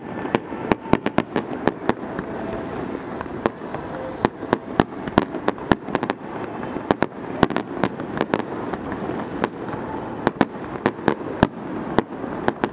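Fireworks display: an irregular, rapid string of sharp bangs from bursting shells, several a second, over a steady background din.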